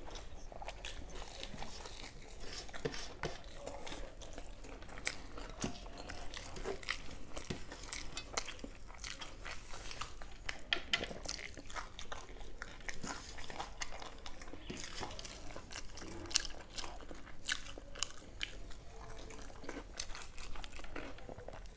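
Close-up mouth sounds of chewing and biting crisp deep-fried prawn fritters with rice: irregular crunches and crackles, coming thicker in the middle stretch.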